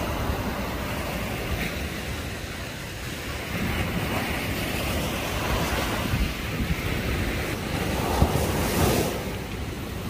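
Sea surf breaking and washing up a sandy beach, a steady rushing wash that swells louder about halfway through and again near the end. Wind buffets the microphone with a low rumble.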